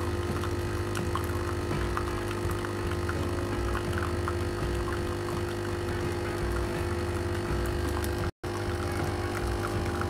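Arissto Happy Maker 2.0 capsule coffee machine's pump running with a steady hum as hot water streams into a ceramic cup, a plain-water rinse cycle before first use. The sound cuts out for an instant about eight seconds in.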